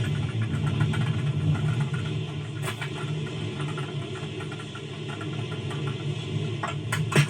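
A rocket sound effect firing with a steady rumble and hiss, cut in abruptly just before and holding throughout. A few sharp cracks come near the end.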